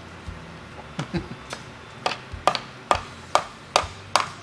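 Small hammer tapping a small nail into a doll-house fridge: a couple of scattered taps, then from about two seconds in a steady run of sharp strikes, about two and a half a second.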